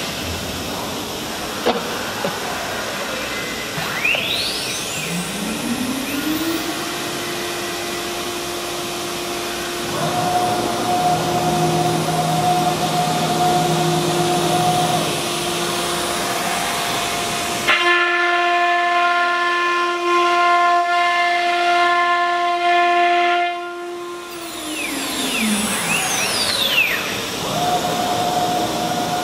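CNC router spindle spinning up with a rising whine about five seconds in, then running at a steady high whine over a constant hiss while routing a wood sheet. The whine grows louder and richer in the middle, and the spindle winds down with a falling whine a few seconds before the end.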